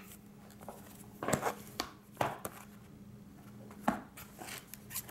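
Cardboard retail box being handled on a tabletop to open it: about five short knocks and taps, the loudest about a second and a half in, just past two seconds and near four seconds.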